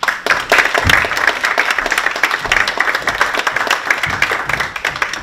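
Audience applauding: a dense patter of many hands clapping that begins abruptly.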